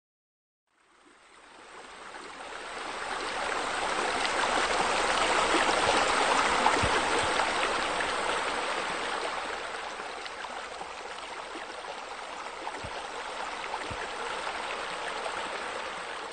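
Running water of a waterfall pouring into a pool, a steady rush and splash. It fades in over the first few seconds, is loudest about six seconds in, then settles a little quieter.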